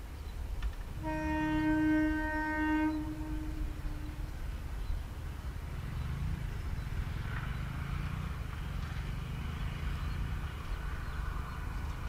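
Indian Railways WAG-5HA twin electric locomotives approaching: one steady horn blast of about two seconds, starting about a second in. It is followed by the low rumble of the locomotives and freight wagons on the rails, which grows louder from about halfway through.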